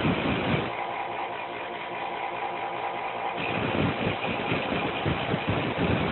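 Small power tool's motor running steadily while a steel lock-pick blank is shaped against it, with rougher, uneven contact noise from about halfway through.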